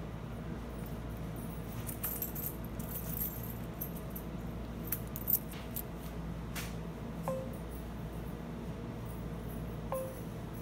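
Multifunction copier's touchscreen beeping twice in the second half as its on-screen buttons are pressed, each beep a short tone dropping quickly in pitch. Light, jingling clinks come in the middle, over a steady low hum.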